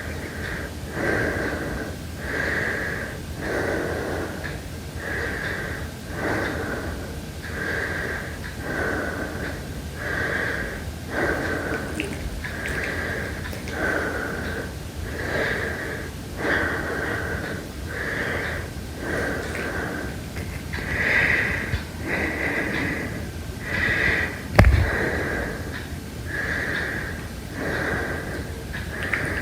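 Heavy breathing in a steady, fairly quick rhythm of about one breath every second and a half, each breath carrying a wheezy, whistling note. A single sharp click with a low thump cuts in about two thirds of the way through.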